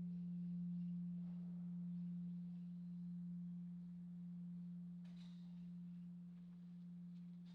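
Large Korean bronze temple bell (beomjong) dying away after a strike. One low hum remains, slowly swelling and fading as it decays, and its higher overtones vanish in the first moment.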